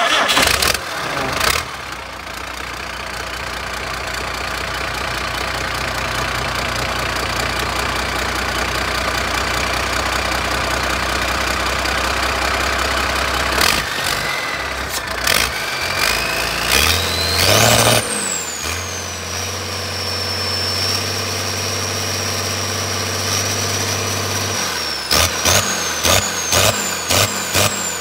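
Cummins diesel engine on a test run: it comes in loud at the start and runs steadily, then is revved up about halfway through with a high whine that rises and then holds steady. Near the end it is blipped hard in quick repeated revs, about three a second, as the mechanic revs, holds and releases it to test it.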